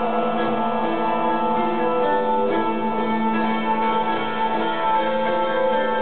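Tambura, a long-necked lute, plucked over a steady held drone, played through a pedalboard of looping effects.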